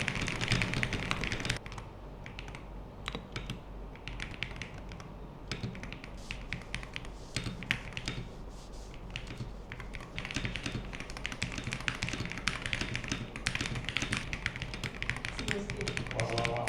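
Fast typing on a GravaStar Mercury V75 HE keyboard with hall-effect magnetic switches: a steady run of quick, irregular keystrokes, a little louder for the first second and a half.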